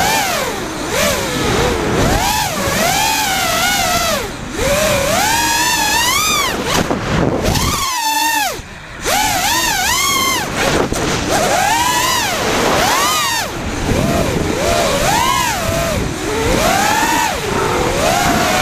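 The brushless motors and propellers of an FPV freestyle quadcopter whine, their pitch rising and falling quickly as the throttle is worked, heard from the onboard camera. About eight seconds in the motors briefly cut to near idle, then spool back up.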